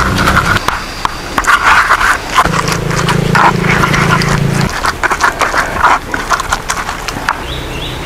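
Wooden pestle grinding and crushing chilies, shallots and tomatoes against a clay mortar (ulekan and cobek), with irregular wet crunches and knocks of the pestle on the clay.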